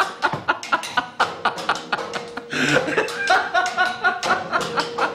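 A man laughing heartily and at length in rapid repeated ha-ha pulses, with music and a steady held note underneath.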